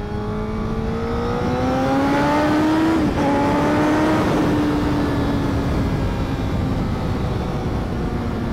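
Honda CBR1000RR sport bike's 999 cc inline-four running under way, its note climbing steadily as the bike accelerates for about three seconds, a short break and small drop in pitch about three seconds in, then holding near steady and easing slightly. Wind and road rush run loud underneath.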